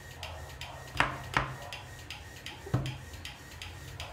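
Very sticky slime being worked off hands and fingers, with small wet ticks and three sharp sticky smacks, the loudest about a second in and another just under three seconds in.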